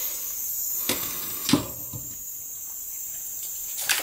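A few light knocks of a soldering iron and a tube of solder being put down on a wooden workbench, about a second in and again near the end, over a steady high hiss.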